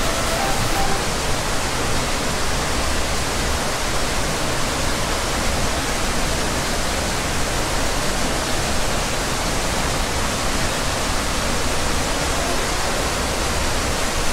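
Steady, even rush of falling water from an aquarium exhibit's waterfall.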